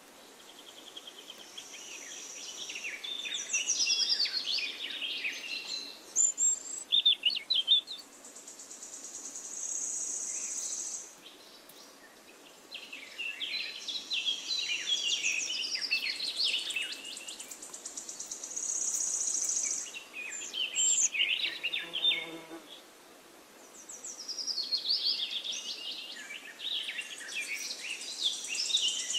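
Small songbirds chirping in repeated phrases of quick, sliding high notes, with a thin, steady high trill held between the phrases.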